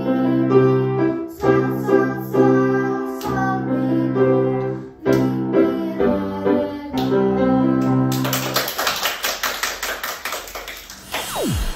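A young girl sings a solo song with piano accompaniment; the song ends about eight seconds in and a small group of children and the teacher clap.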